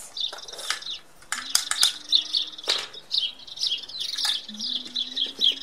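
A small bird chirping over and over in short high calls, with a few light clicks and taps from plasticine pieces and a plastic cutter handled on a table.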